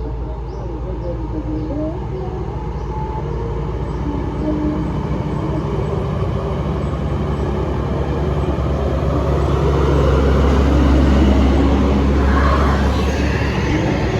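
Heavy bus diesel engine pulling uphill under load, a steady low rumble that grows louder and is loudest about ten to twelve seconds in as it comes close.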